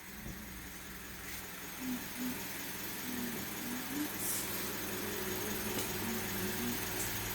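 Toyota Calya's 1.2-litre four-cylinder petrol engine idling steadily during a morning warm-up. Faint wavering voice-like sounds come and go behind it.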